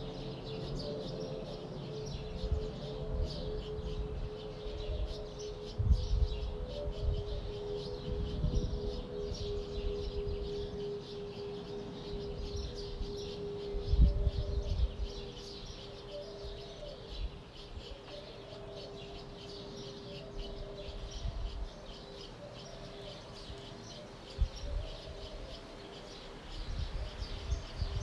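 Many small birds chirping and twittering continuously, with a steady low hum underneath that fades out near the end. A few brief low rumbles come through, the strongest about halfway.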